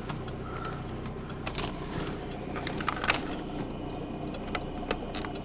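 A vehicle's engine idling with a steady low hum, with scattered small clicks and knocks over it.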